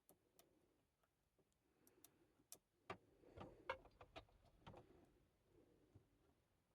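Faint, irregular small clicks and light scraping of a thin prying tool working under a DIP chip, the Amiga's CIA, to lever it out of its socket; the clicks bunch up in the middle of the stretch.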